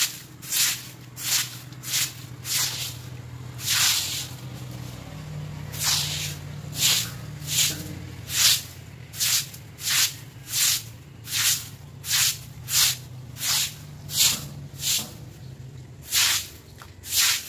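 A broom sweeping water and wet leaves across a wet concrete floor: repeated swishing strokes, about three every two seconds, with one longer stroke about four seconds in followed by a short break.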